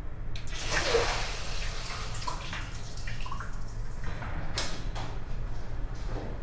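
Public restroom ambience: water splashes briefly, then a few drips and a sharp click, over a steady low hum in a small tiled room.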